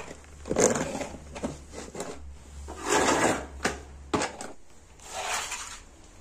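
A hand tool scraping and chipping the dried clay seal off the concrete around the metal lid of a pit tandoor, which is being opened after cooking. There are several rough scraping strokes with sharp knocks between them.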